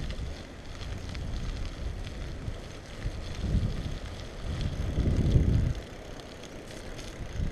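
Wind buffeting a GoPro's microphone on a moving bicycle: a steady rushing hiss with low rumbling gusts, the heaviest about three and a half and five seconds in.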